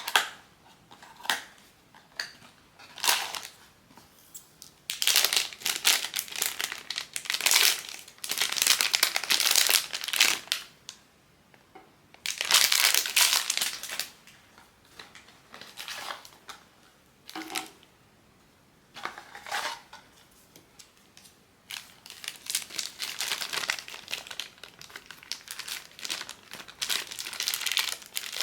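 Plastic blind-box packaging crinkling as it is handled and opened. A few short crackles come in the first few seconds, then longer stretches of crinkling broken by pauses.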